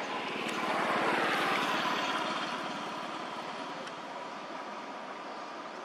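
A motor vehicle passing on the road: it swells about a second in, its pitch drops as it goes by, and then it fades off.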